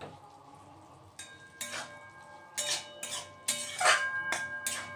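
Metal spatula knocking and scraping against a metal kadai while stirring vegetables, the pan ringing after each strike. About eight strikes, starting about a second in.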